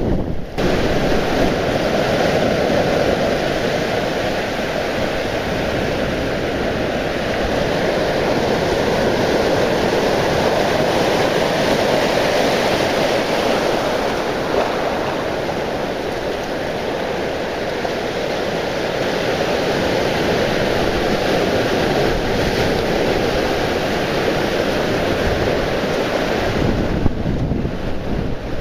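Sea surf washing onto a sandy beach, a steady rush that swells and eases slowly, with wind buffeting the microphone.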